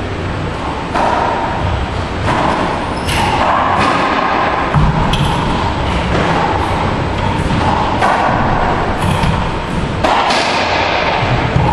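Racquetball rally: the hollow rubber ball cracking off racquets and the court walls, a string of sharp hits about a second apart, each echoing in the enclosed court, over a steady hiss.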